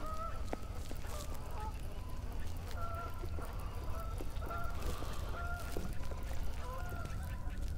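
Geese honking repeatedly, a string of short calls one after another.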